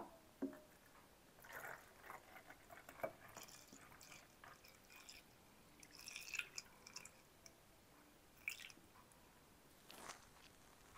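Milk tea poured from a pitcher through a funnel into a square bottle: a faint, uneven trickle of liquid with small drips.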